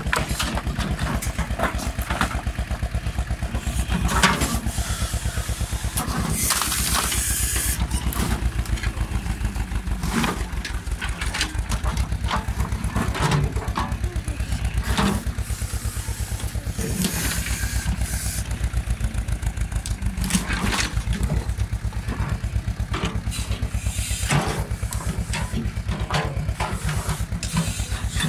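A Troll mini excavator's engine runs steadily throughout, under scattered cracks and clatter of wooden planks being broken and shifted. There is a longer crash of falling or splintering timber about seven seconds in.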